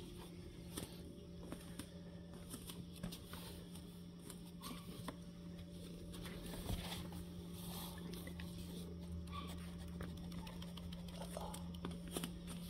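Soft scattered ticks and rustles of a cat shifting and grooming in a cardboard box, over a steady low hum in a quiet room.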